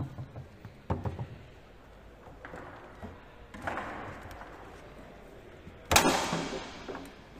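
Foosball play on a Leonhart table: sharp knocks of the ball and rod-mounted players, with one loud bang about six seconds in that echoes through the hall.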